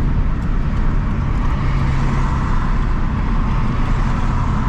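Scion FR-S coasting on the freeway with its knocking engine dead: steady tyre and wind noise inside the cabin with a low, even drone.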